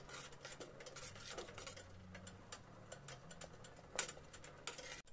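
Metal spoon stirring noodles in a stainless steel pot of water, giving faint scattered clinks and taps against the pot, with a sharper clink about four seconds in.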